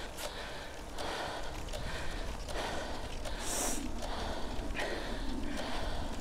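Heavy, rhythmic breathing of a cyclist labouring up a steep hill climb, a little more than one breath a second. A short sharp hiss comes about halfway through, over a low wind rumble on the microphone.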